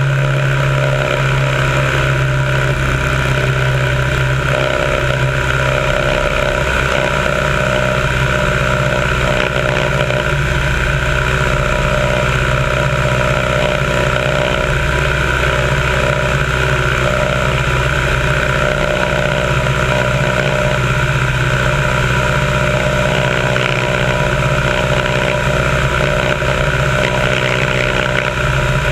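Biplane's piston engine and propeller running steadily in flight, heard from a camera on the wing with wind rushing over the microphone.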